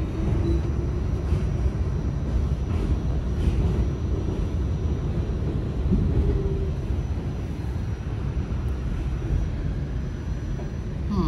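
New York City subway train rolling slowly past at close range: a steady low rumble of wheels on rail and running gear, with a faint thin squeal now and then.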